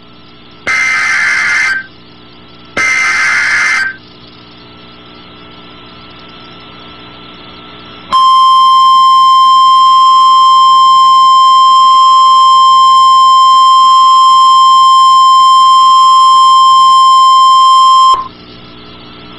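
NOAA Weather Radio Emergency Alert System alert: two one-second bursts of screeching SAME digital header data, then, about eight seconds in, the steady 1050 Hz warning alarm tone. The tone holds for about ten seconds and cuts off suddenly, marking the start of a warning broadcast.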